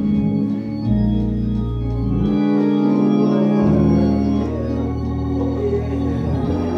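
Organ playing sustained chords over a moving bass line, changing chord every second or two: church organ music under a pause in the preaching.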